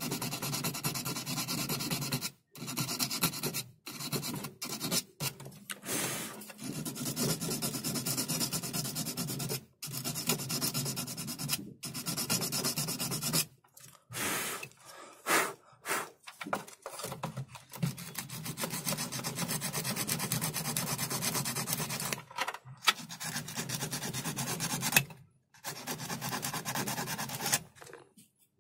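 Sandpaper (100 grit) rubbed by hand over the metal spade terminals of a 12 V 7 Ah sealed lead-acid battery, in long strokes broken by short pauses. This roughens the terminals so that solder will take.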